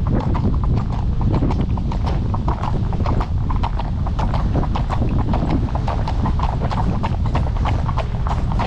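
A horse's hooves clip-clopping in a steady, regular run of hoof strikes, over a constant low rumble.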